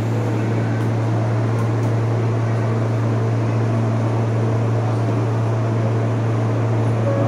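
Steady low hum and drone inside an R160 subway car as it draws to a halt and stands at a station platform, with no change in pitch or level.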